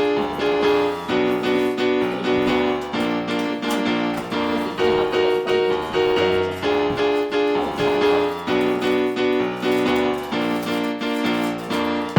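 Background music: a piano or electric-piano tune with chords changing in a regular rhythm.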